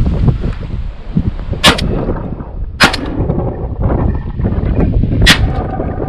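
Three shotgun shots: two about a second apart, then a third about two and a half seconds later, over steady wind buffeting the microphone.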